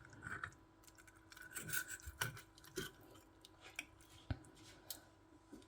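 Faint rubbing and scraping with scattered small clicks: utensils and hands working the braised pork knuckle on its plate.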